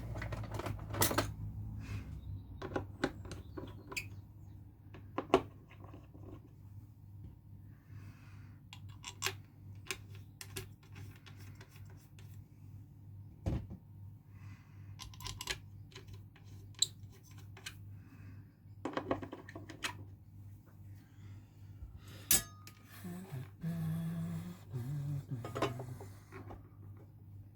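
Irregular clicks, clinks and knocks of small hard parts and tools being handled on a workbench, over a low steady hum.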